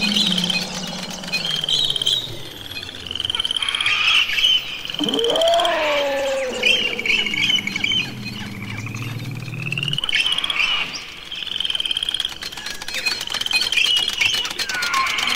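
Experimental noise soundscape of rapid trilling, chirping calls like frogs or birds, repeating high up over a low hum that swells and cuts off about two-thirds of the way through. A swooping tone rises and then slowly falls about five seconds in.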